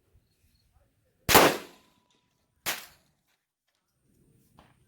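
Two rifle shots about a second and a half apart, the first the louder, each with a short echoing tail.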